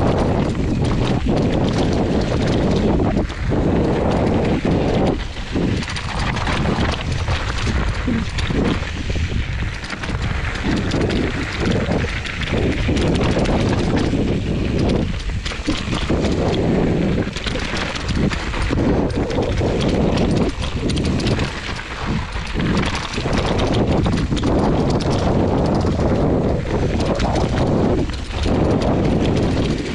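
Hardtail mountain bike rolling fast down rocky dirt singletrack: tyres crunching over dirt and stones, with the bike clattering and rattling over the bumps in a constant, loud stream of small impacts.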